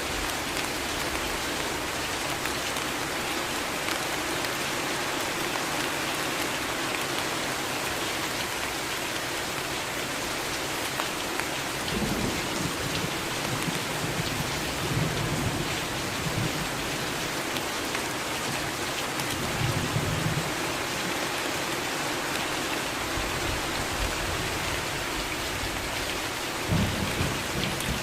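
Steady rain falling, an even hiss of drops. From about halfway through, low rolls of thunder rumble underneath, swelling a few times.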